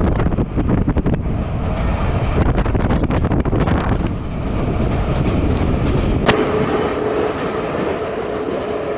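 A metro train running across a river bridge. For the first six seconds it rumbles and clatters under heavy wind on the microphone, heard from its roof. Then the sound cuts to the train heard from further off, a quieter rumble with a steady whine.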